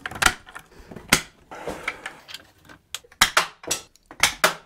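Sharp plastic clicks and clacks of 3D-printed PLA parts as red ammunition rounds are fitted into the mech's launcher, several clicks close together in the second half.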